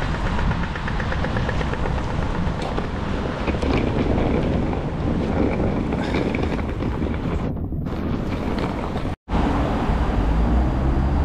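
Wind buffeting the microphone over a steady outdoor wash of traffic on wet roads. The sound drops out to silence for a split second about nine seconds in.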